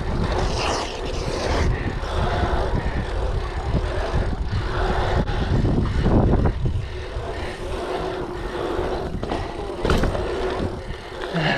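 Wind buffeting the microphone as a hardtail bike rolls fast over an asphalt pump track, with steady tyre rumble and short knocks and rattles from the bike over the rollers.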